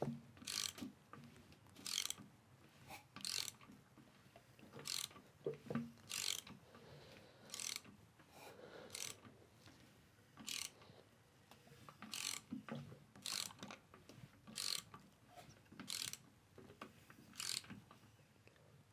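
Ratchet wrench clicking in short bursts, roughly one a second, as the crankshaft of a Subaru FA/FB engine is turned by hand through two revolutions to check the timing marks after the chains are installed.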